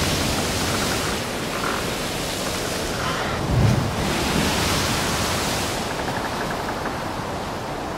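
Ocean waves surging, a steady rush that swells and eases, with a short low thud about three and a half seconds in.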